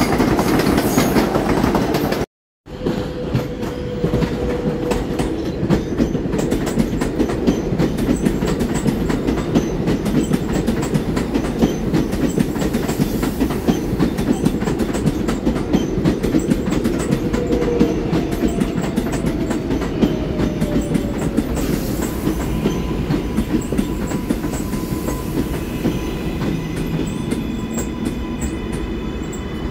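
New York City Subway R142A train rolling along the elevated track, its wheels clicking over the rail joints with a steady low rumble. The sound drops out for a moment about two seconds in. In the second half, steady whining tones from the train's electric motors join in.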